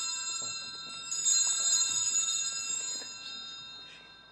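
Altar bells, a cluster of small sanctus bells, shaken in peals that mark the elevation of the chalice at the consecration. One peal ends just after the start, a fresh peal begins about a second in, and the ringing then dies away near the end.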